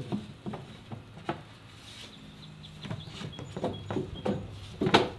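A wooden panel knocking and tapping against an aluminium 80/20 extrusion frame as it is pushed in for a test fit: a scatter of light knocks, with a louder knock near the end.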